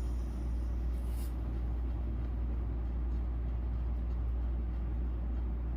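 Steady low background rumble, with a short soft hiss of breath drawn in through one nostril about a second in, during Surya Bhedana pranayama (right-nostril inhalation).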